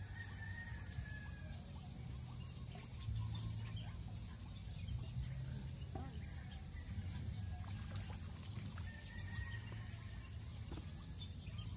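Outdoor ambience by a pond: a steady low rumble and a constant high hiss, with faint short bird calls near the start and again around nine seconds in.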